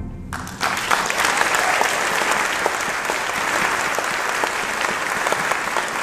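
The concert band's final chord fades out. Audience applause breaks out about half a second in and carries on steadily.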